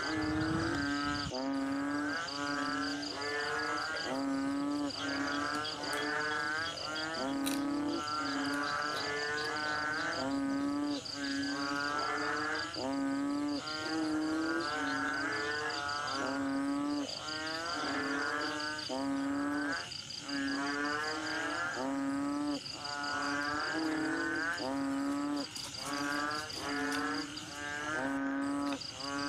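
Background instrumental music: a wavering melody over a steady, repeating beat.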